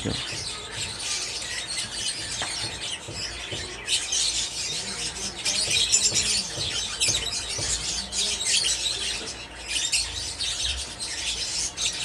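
Many small cage birds chirping and squawking, a continuous busy chatter that grows louder a few seconds in.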